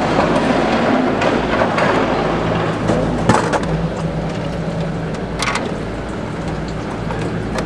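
Drinks vending machine dispensing a can: a sharp clunk about three seconds in as the can drops into the bin, and another knock about five and a half seconds in as it is taken out, over a steady low hum.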